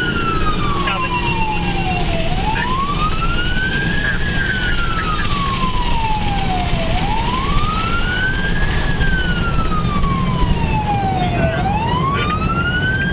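Emergency-response truck's siren sounding a wail, heard from inside the cab over steady engine and road noise. The tone rises quickly and falls slowly, one cycle about every four and a half seconds, with about three cycles heard.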